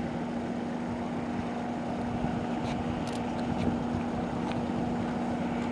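Aircraft tow tractor running steadily as it tows an Airbus A380, a constant engine drone with a steady hum.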